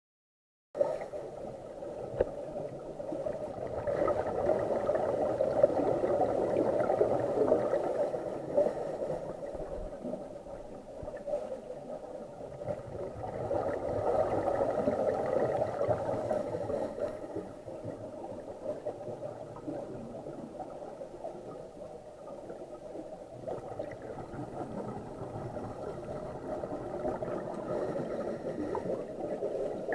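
Scuba diver's regulator breathing heard muffled through an underwater camera housing: gurgling swells of exhaled bubbles about every ten seconds, with quieter stretches in between.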